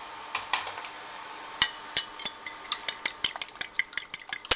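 Fork beating a raw egg in a ceramic bowl: quick clinks of the fork against the bowl start about a second and a half in, about five a second.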